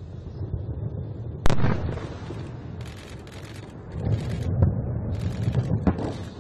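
Explosions of a bombardment heard over a steady low rumble: one sharp, loud blast about a second and a half in, then from about four seconds in a stretch of rumbling booms with several smaller blasts.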